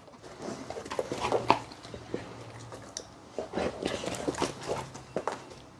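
A dog moving about a carpeted room, nosing around for a toy: scattered soft clicks, knocks and rustles, with no loud event.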